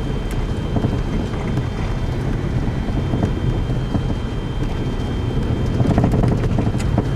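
Steady low rumble of a car driving slowly along a snow-covered road, heard from inside the cabin, with a few faint ticks around six seconds in.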